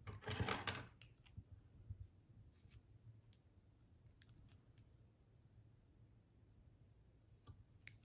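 Quiet handling of a crocheted cotton coaster: a short rustle of hands smoothing it on the table near the start. Then a few soft clicks of scissors snipping the yarn tail.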